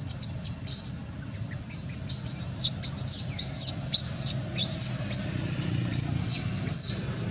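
Baby macaque giving high-pitched squealing distress cries in quick succession, many sliding down in pitch, as it tries to nurse from its mother.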